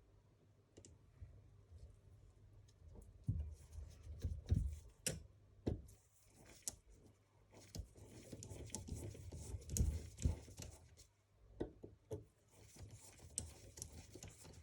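Small metal engine parts and tools being handled and set down on a workbench: scattered light clicks and knocks.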